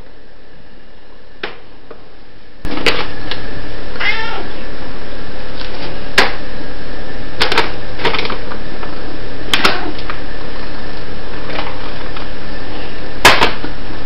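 Domestic cat meowing up at the person about six times in short calls, one longer wavering meow about four seconds in, over a steady background hiss that gets louder about three seconds in.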